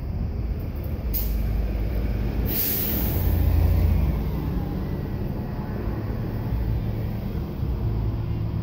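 Steady low rumble with two short hisses, about one and two and a half seconds in.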